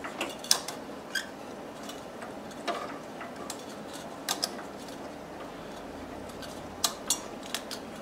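Metal wire fan clips clicking and scraping against a tower CPU cooler's metal fins as a fan is clipped onto the heatsink: scattered sharp metallic clicks, several in quick succession near the end.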